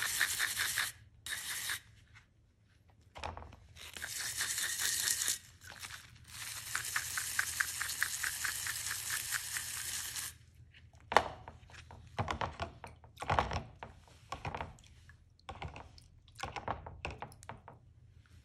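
Stiff-bristle brush scrubbing a wet metal bottle opener with rapid back-and-forth strokes, in three long spells. About ten seconds in the scrubbing stops and gives way to scattered knocks and clicks from the opener being handled.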